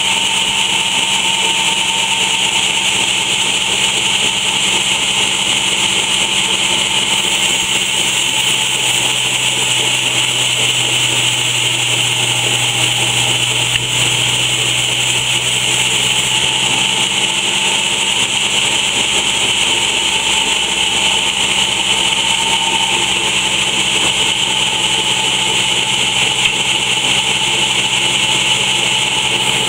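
Large sawmill band saw running steadily: a constant hiss over a low hum.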